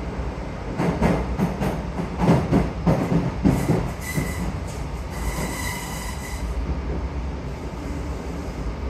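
DART 8510 class electric train heard from inside the passenger saloon while running: a steady low rumble, a run of wheel clacks over the track in the first few seconds, then a brief thin wheel squeal twice around the middle.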